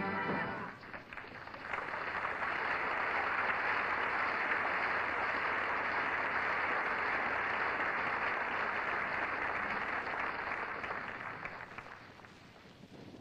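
A musical number ends about a second in, then a studio audience applauds steadily, the clapping fading out near the end.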